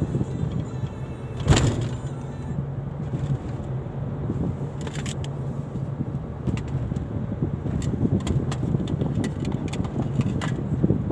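Vehicle engine running with a steady low drone and road noise, with a sharp knock about a second and a half in and scattered clicks and rattles after it.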